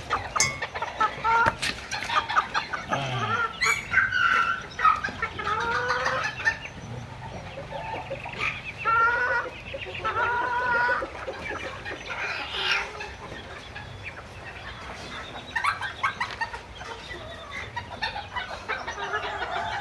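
Chickens clucking in short, repeated calls.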